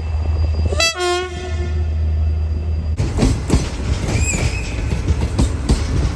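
A train horn gives one short blast about a second in, over the low rumble of a train. From about three seconds the train passes close by, its wheels clattering over the rail joints, with a brief high squeal partway through.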